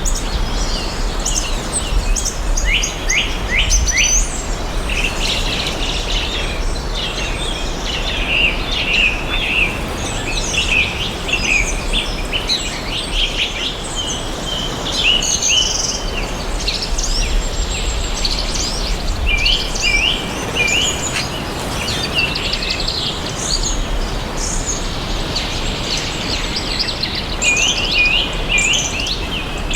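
A chorus of several birds chirping and singing together: many short, quick chirps and trills overlapping without a break, over a steady outdoor background hiss.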